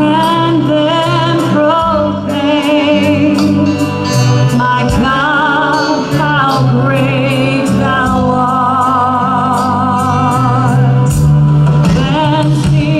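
Church praise team singing a gospel song with live band accompaniment: sung voices with vibrato over a steady beat.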